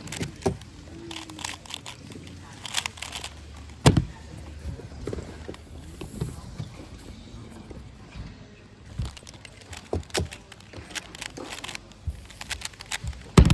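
Plastic clicking and clacking of a Pyraminx being turned and handled, with scattered sharp knocks, the loudest about four seconds in and again at the very end.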